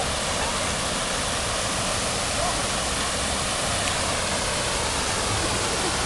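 Water spilling over a low concrete weir and crashing into the pool below: a steady, unbroken rush.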